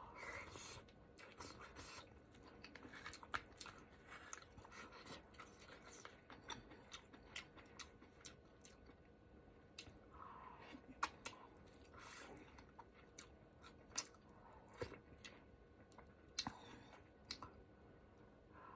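A person chewing food close to the microphone, with many small, irregular wet mouth clicks and smacks.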